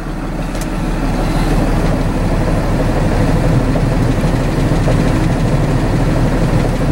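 Truck cab's heater and defrost blower fan switched up to high, a steady rush of air that builds over about the first second and then holds, over the low hum of the idling engine.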